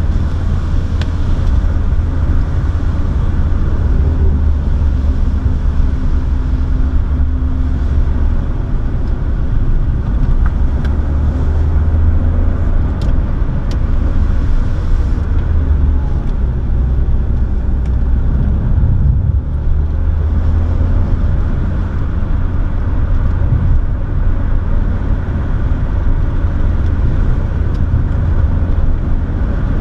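Car engine and tyre noise heard inside the cabin while driving: a steady low rumble whose engine note shifts now and then, with a couple of faint ticks about halfway through.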